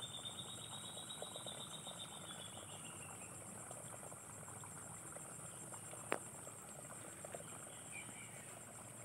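Steady high-pitched chirring of field insects, with a rapid trill of notes that fades out about three seconds in and a single sharp click about six seconds in.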